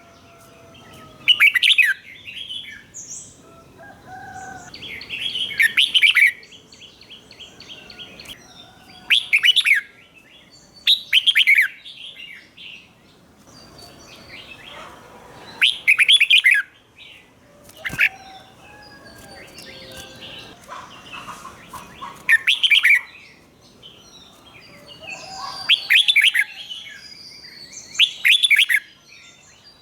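Red-whiskered bulbul singing the doubled-phrase ('เบิ้ล') song: short, loud, bright phrases every two to four seconds, with fainter chirps and whistles between them.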